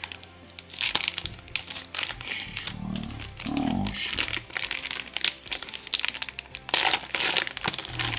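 Foil wrapper of a hockey card pack crinkling and tearing as it is opened, in several rustling bursts with sharp clicks and snaps from the handling.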